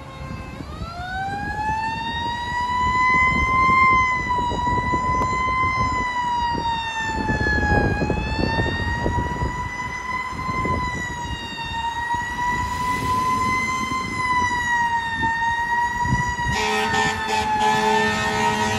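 Fire engine siren winding up from a low pitch over the first two seconds, then wailing slowly up and down as the truck approaches through traffic. In the last couple of seconds a loud, blaring air horn joins the siren.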